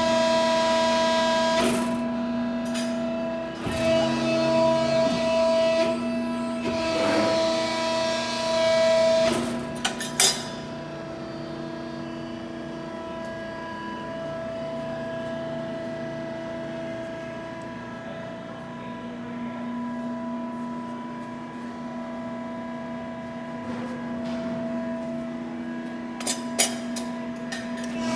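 Hydraulic pump and motor of a Cincinnati CNC hydraulic press brake running, with a steady whine made of several tones that swell and fade as the load changes while the ram cycles. There are two sharp clicks, about ten seconds in and near the end.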